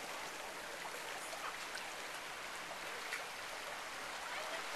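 Seawater washing over sand and among beach rocks: a steady even hiss with scattered faint ticks.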